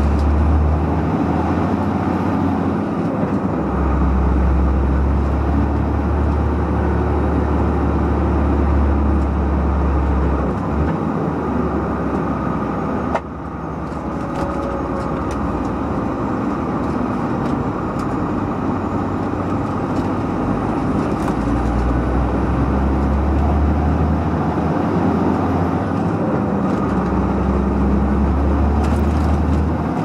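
Diesel engine of a loaded army IVECO 6x6 truck pulling uphill, heard from inside the cab: a steady deep drone with road noise, dipping briefly about halfway through.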